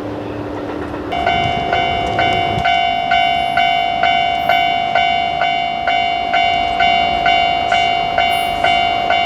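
A railway level crossing's warning bell starts ringing about a second in and keeps ringing at a steady two strikes a second. Under its first seconds a passing train rumbles and then stops about two and a half seconds in.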